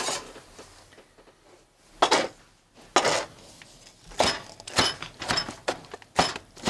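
A flat steel chopping blade knocking down through jarred jalapeño slices onto a plastic cutting board. Two single chops come first, then from about four seconds in a quicker run of chops, roughly two a second.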